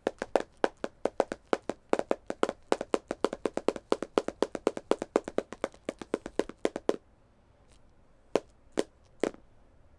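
Eraser-tipped pencils used as drumsticks, tapping out a fast drum roll on a drum-kit-shaped notepad for about seven seconds, then three single taps near the end.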